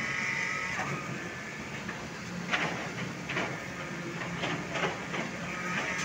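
Steady drone of concrete-pouring machinery, with sharp knocks and clatters now and then, the loudest about two and a half seconds in.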